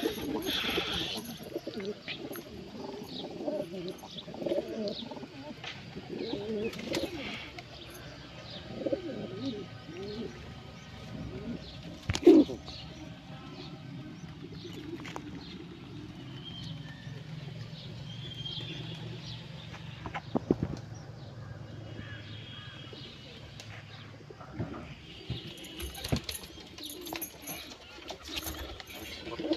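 Domestic pigeons cooing repeatedly, with a sharp knock about twelve seconds in.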